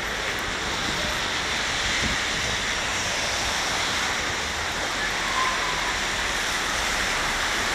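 Steady rushing noise of a wet city street: traffic tyres hissing on the rain-soaked road, with wind buffeting the microphone.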